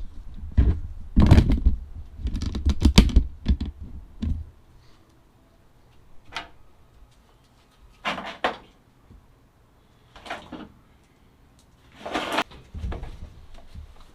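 Hand work on wiring and parts inside a truck cab: a burst of rattling knocks and thumps, then scattered single clicks and knocks.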